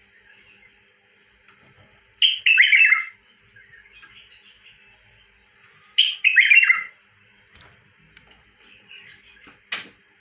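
Caged bulbul singing two short, quick phrases of several notes each, about four seconds apart. A single sharp click comes near the end.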